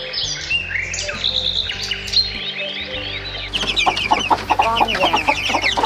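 Small birds chirping and twittering. About three and a half seconds in, this gives way to a hen clucking amid the rapid high peeping of chicks.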